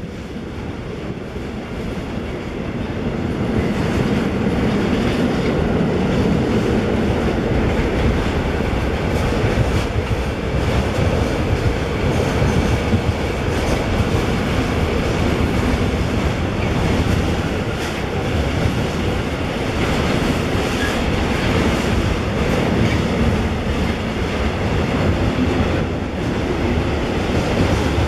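A freight train's container and tank-container wagons rolling past, their wheels running over the rails. The sound swells over the first few seconds and then holds steady.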